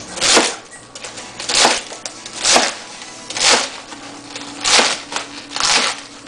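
Large kitchen knife chopping crosswise through a crisp head of leafy greens onto a plastic cutting board: six crunchy cuts, about one a second, each ending on the board.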